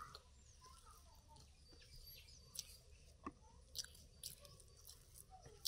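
Faint wet chewing and scattered soft mouth clicks from a person eating soft idly mixed with mutton curry by hand, with a few faint bird chirps in the background.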